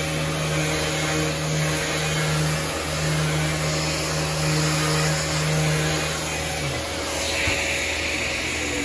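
Electric palm sander with a rectangular pad and a dust-extraction hose, running steadily as it scuff-sands the primer on a cabinet door between coats. Its motor hum stops about seven seconds in, leaving a steadier hiss.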